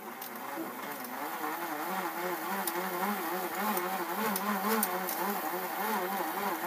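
Small electric motor of a spinning power tool running while pressed against wood to burn it by friction. Its hum wavers up and down in pitch about twice a second as the pressure on it changes.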